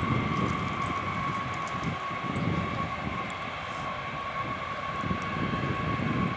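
B-52H Stratofortress's eight TF33 turbofan engines whining steadily at low power during the landing rollout, over an uneven low rumble.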